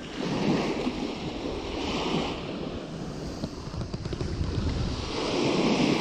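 Sea waves washing onto the shore, surging loudest about half a second in and again near the end, with wind buffeting the microphone.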